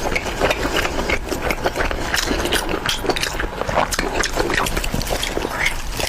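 Close-miked eating sounds: wet chewing and lip-smacking with many quick, irregular clicks.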